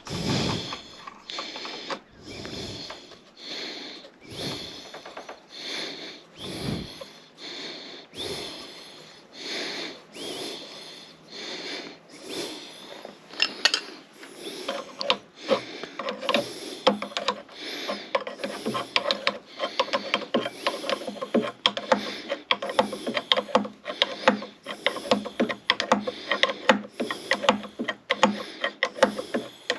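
Hand tools working metal on a skid steer's hydraulic cylinder and fittings: slow strokes about once a second, then from about halfway in a run of rapid clicking.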